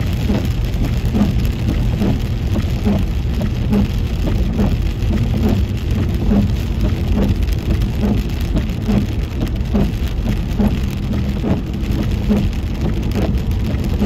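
Car driving in rain, heard from inside the cabin: a steady rush of tyres on wet pavement and rain on the car. Windshield wipers thump at an even beat a little more than once a second.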